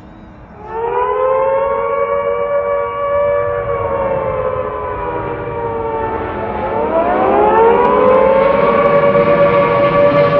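Civil-defence sirens wailing together across the city. The tone swells up under a second in, holds, dips a little past halfway and climbs back. This is the W-hour remembrance siren signal.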